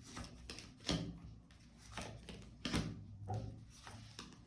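Tarot cards being handled on a table: a few short light clacks and knocks with soft rustling between.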